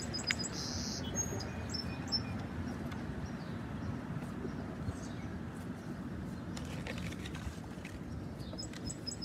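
Outdoor background: a steady low rumble, with a few faint high bird chirps in the first second or two.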